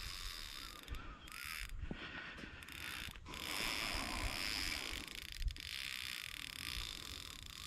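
Fishing reel's drag ticking in a fast ratchet as a hooked bull shark pulls line off, the drag just backed off.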